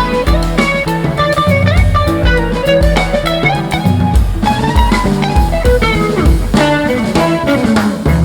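Music: a guitar melody with bends over a bass line and drum kit beat.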